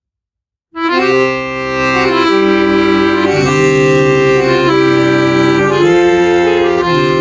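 Accordion playing a slow tune of held chords, starting under a second in.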